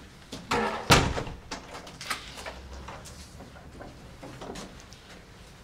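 A door banging shut about a second in, followed by a few lighter knocks.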